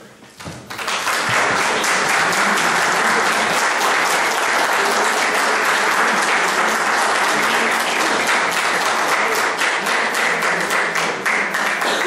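Audience applauding steadily, swelling up about a second in.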